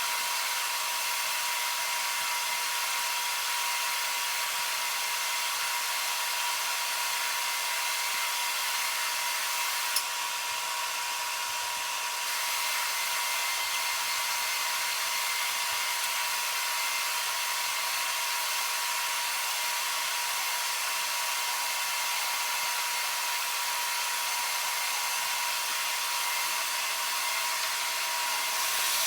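Carpet cleaning equipment running steadily, a motor whine with a constant high hiss. A single sharp click about ten seconds in, and the sound gets louder near the end.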